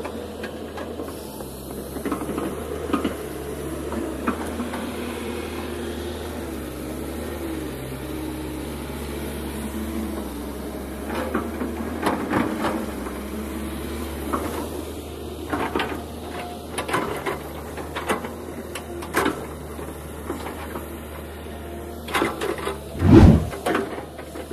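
Kobelco SK210LC hydraulic excavator working: the diesel engine runs steadily under a hydraulic whine that wavers in pitch as the boom and bucket move. In the second half the bucket scrapes and knocks through soil and stones, with one heavy thud near the end.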